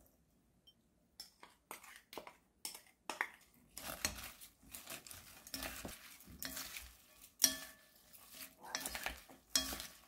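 Coleslaw being tossed with two wooden utensils in a large bowl: shredded cabbage, apple and corn mixed wet through mayonnaise dressing, with repeated knocks of wood on the bowl. The knocks start sparse about a second in and become a steady clatter from about four seconds in.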